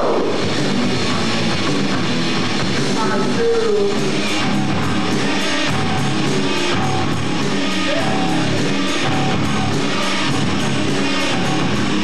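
Live rock band playing: electric guitars, bass and a drum kit, with a singer's voice over them. A steady drum beat on the cymbals comes in about four seconds in.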